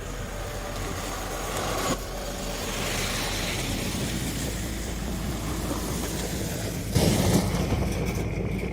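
A heavy vehicle's engine running steadily, with a sudden louder burst of noise about seven seconds in.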